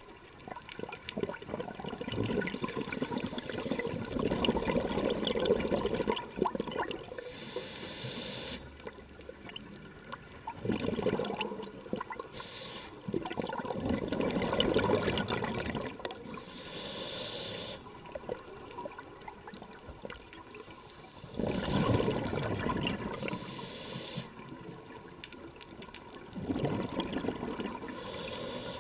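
Scuba diver's regulator heard underwater: exhaled air bubbles gurgling out in about five bursts of a few seconds each, with quieter stretches of higher hissing between them.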